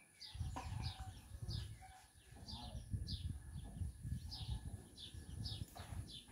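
A bird calling over and over in short falling chirps, about two a second, over a low rumbling noise.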